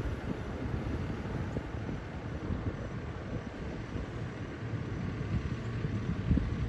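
2010 HME/Ferrara fire engine's diesel engine running at low speed as the rig pulls slowly out, a steady low rumble.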